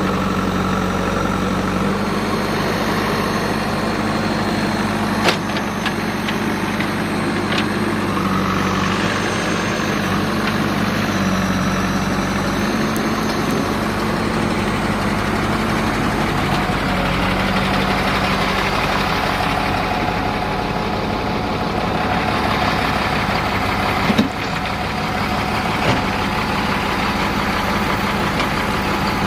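Heavy diesel engine running steadily at low revs, with two sharp knocks: one about five seconds in and a louder one near the end.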